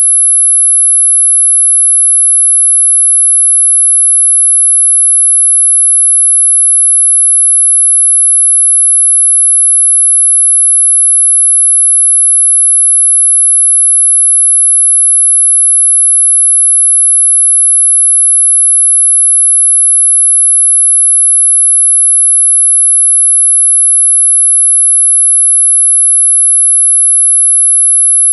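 A loud, steady pure sine tone at about 11 kHz, a single high-pitched whistle that does not change. It is an electronically generated tinnitus-masking tone, meant to cover high-pitched ringing in the ears.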